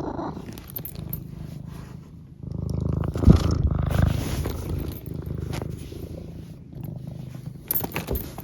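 Domestic cat purring steadily close to the microphone, the purr swelling louder for a couple of seconds about a third of the way in. A sharp knock sounds once in the middle.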